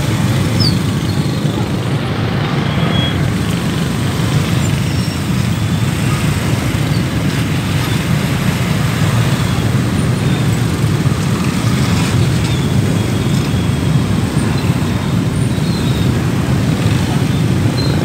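Steady, loud motorcycle traffic noise on a city street, heard from a moving motorbike: engines and road noise with a deep rumble.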